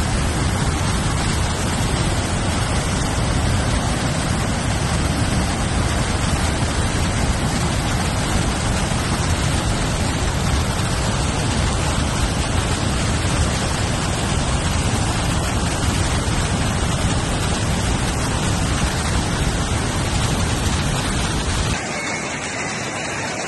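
Flood-swollen, muddy waterfall rushing hard: a loud, steady wash of water noise. Near the end it changes abruptly to quieter rushing water with much less low rumble, as floodwater runs through landslide debris.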